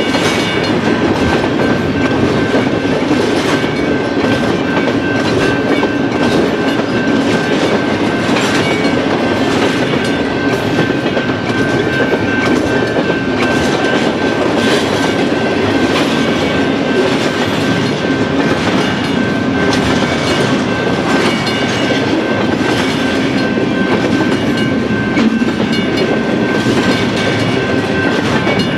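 Double-stack intermodal well cars of a freight train rolling past at speed: a loud, steady rumble of steel wheels on rail with regular clacks. A thin, steady high-pitched tone sounds over it throughout.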